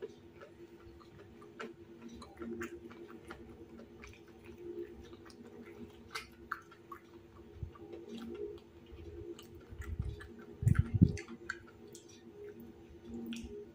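Close-miked chewing of crispy tahu bakso (fried tofu stuffed with meatball) and rice, with many small mouth clicks. About ten seconds in, a loud low thump.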